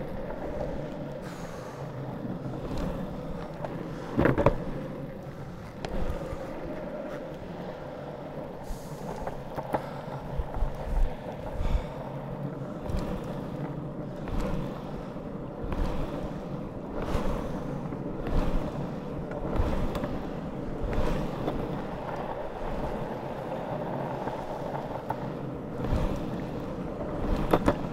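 Longboard wheels rolling over asphalt: a steady rumbling roll with occasional sharp clicks and knocks as the wheels cross cracks and seams in the road, the strongest about four seconds in and near the end. Some wind buffets the microphone.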